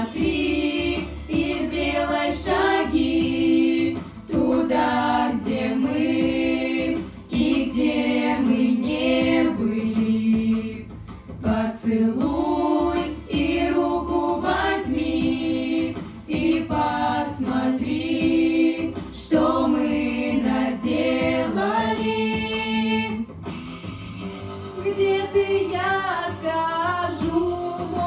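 A girls' vocal group singing together into handheld microphones, several voices at once in sustained sung phrases.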